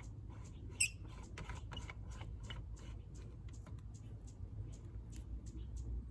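Water pressure gauge's brass fitting being screwed by hand onto a hose bib's threads: a run of small creaks and clicks, with one sharper click about a second in.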